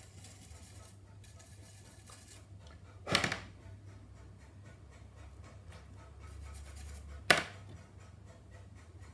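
Faint scratching of a small hand tool working a plastic model car body shell, with two louder short scrapes or knocks, about three seconds in and again about seven seconds in.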